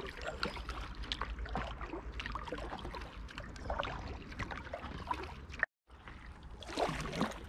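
Double-bladed paddle strokes from an inflatable packraft: the blades dip in, water trickles and drips off them in small irregular splashes, over a low steady rumble. The sound cuts out completely for a moment about six seconds in.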